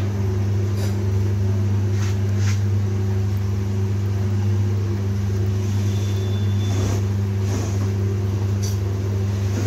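Long cotton wick making machine running: a steady low hum from its electric motor and belt drive, with a few faint light clicks. The belt-to-plate gap is set at 1 to 1.5 mm, and the machine is forming wicks properly.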